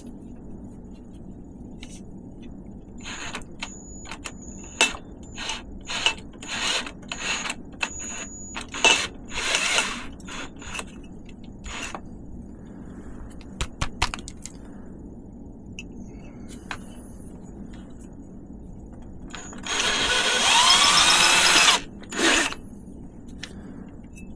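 Electric drill boring out a hole in a metal bicycle frame with an oiled bit: a string of short trigger bursts, then a louder run of about two seconds with a shifting whine near the end, followed by one more short burst.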